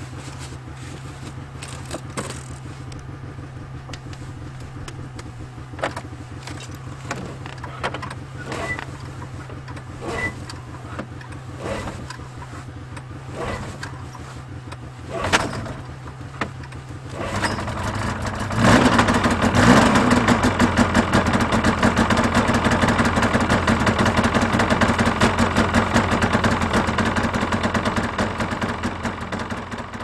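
Snowmobile being cold-started in minus-30 weather. Scattered knocks and clicks sound over a low steady hum, then about seventeen seconds in the engine catches, revs briefly and settles into a loud, steady run.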